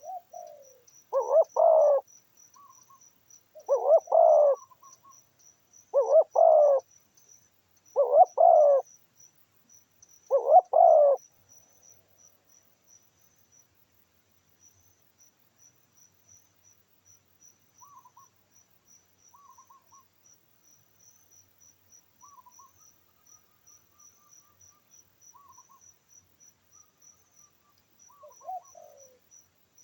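A bird gives five loud calls about two seconds apart, then a few faint calls, over steady cricket chirping.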